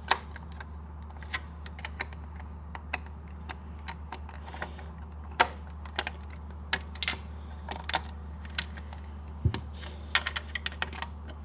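Irregular plastic clicks and snaps of LEGO bricks being pried apart with a brick separator and pulled off and pressed on by hand, over a low steady hum. The loudest clicks come around five and a half seconds in, with a low knock near nine and a half seconds.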